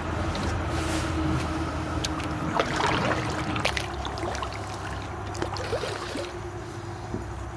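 Water trickling and splashing around a kayak's hull as it is paddled through a shallow stretch of river, busiest about three seconds in, with a few sharp knocks on the hull and a steady low hum underneath.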